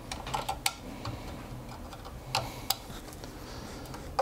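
Sharp little clicks of metal spring clamps on a 3D printer's print platform being snapped round to hold a perforated board: a few in the first second, then two more a little past two seconds.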